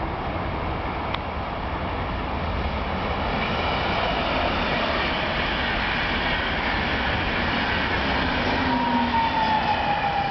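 A DB InterCity train passing at speed, its coaches rumbling and hissing on the rails and growing louder. Near the end a falling whine rises over the noise as the electric locomotive pushing at the rear goes by.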